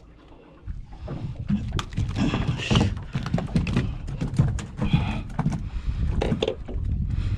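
Irregular knocks and thumps over a low rumble of wind and water noise aboard a small fishing boat, starting about a second in.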